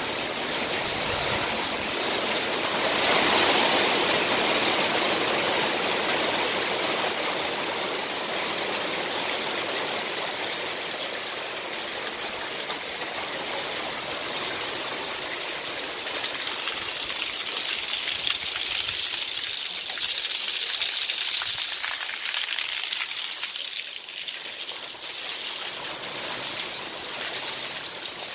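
Heavy rain, with runoff pouring off a roof edge and splashing onto wet patio paving: a steady rush of water that swells a little a few seconds in and again in the second half.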